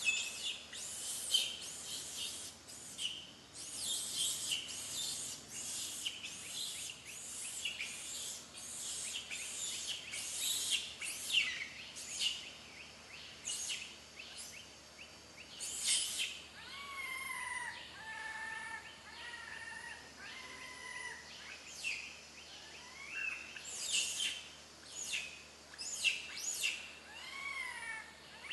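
Infant macaque crying, begging to nurse. A rapid run of short, shrill squeals through the first twelve seconds or so gives way about halfway through to drawn-out, steady whimpering coos, with a few rising-and-falling cries near the end.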